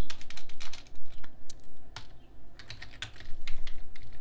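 Computer keyboard being typed on: a quick run of keystrokes at the start, a few single taps, then another quick run near the end.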